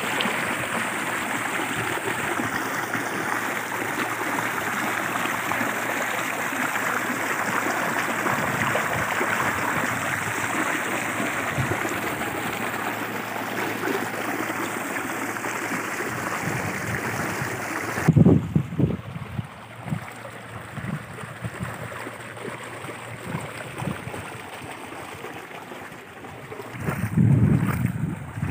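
Borewell outlet pipe pouring a strong stream of water into a concrete tank: a steady splashing rush. About two-thirds of the way through it cuts suddenly to a quieter flow of water, with gusts of wind rumbling on the microphone.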